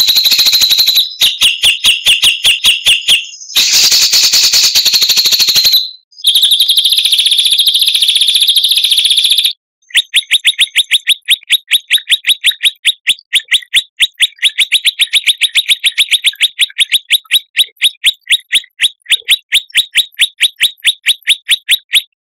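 Recorded songbird song used as a training track for caged songbirds. Dense, high chattering phrases come first, broken by brief gaps. Then a long run of sharp notes evenly repeated at about five a second, which cuts off suddenly near the end.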